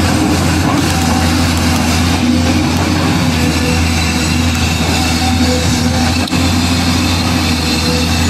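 Steady low engine drone, like a heavy vehicle idling, holding an even level with a few faint pitched tones over it and one short click about six seconds in.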